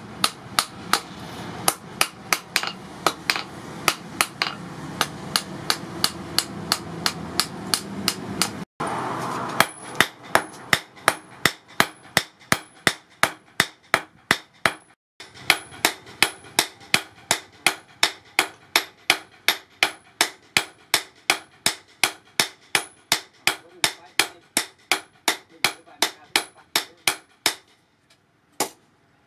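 Blacksmith's hand hammer forging a red-hot steel file on a small anvil: a steady run of ringing blows, about two to three a second. The sound cuts out briefly twice.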